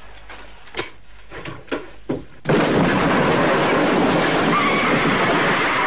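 A building explosion in a film soundtrack goes off suddenly about two and a half seconds in, and its loud noise carries on without letting up. Before it there are only a few short, faint sounds.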